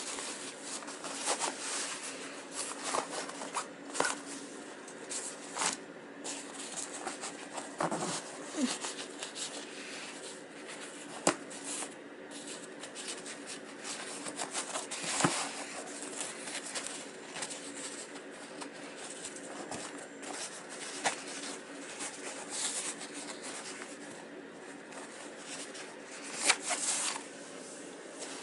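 Fabric mukluk rustling as its drawstring cord is pulled and tightened by hand through the D-rings, with scattered sharp clicks and snaps.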